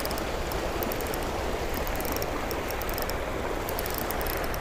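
Shallow river water rushing over a rocky cascade: a steady, even rush.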